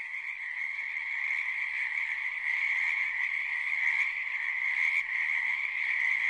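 A dense chorus of frogs calling, a steady unbroken high-pitched trilling with no pauses.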